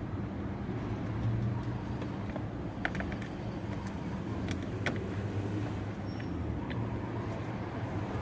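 Steady low hum of a running vehicle engine, with a few light clicks from hand tools and screws about three, four and a half and five seconds in.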